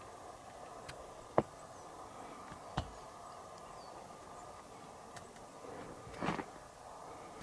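Quiet steady background hiss with faint high chirps, broken by two sharp clicks about a second and a half apart and a brief rustle near the end.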